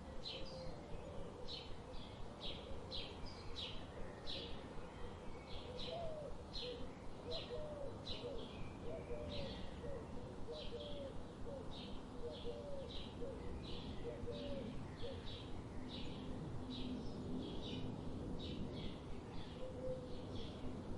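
Birds chirping: short high chirps repeating two or three times a second, and a lower, wavering call through the middle stretch.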